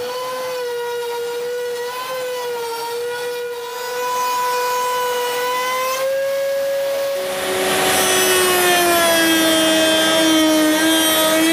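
Table-mounted router with a tongue-and-groove (rail-and-stile) bit, spinning at high speed with a steady high whine. About seven seconds in, the pitch drops sharply and a louder rushing noise of cutting joins it as the bit comes under load in the wood.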